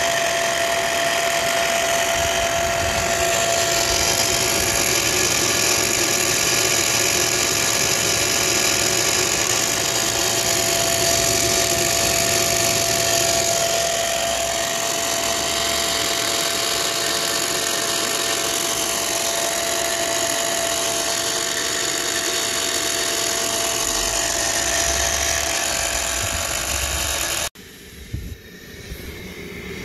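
Electric steam-raising fan on the chimney of a 5-inch gauge Pansy live-steam locomotive, running steadily with a constant whine to draw the fire while steam is raised. It cuts off suddenly near the end.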